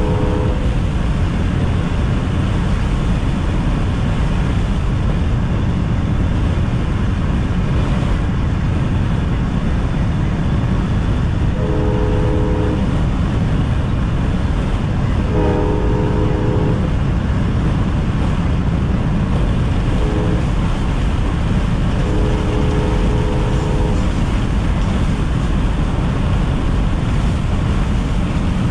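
Amtrak GE P42DC locomotive's horn blowing the grade-crossing signal: long, long, short, long, in a chord of several tones. It comes over the steady rumble of road and wind noise in a car keeping pace with the train. An earlier blast ends just under a second in.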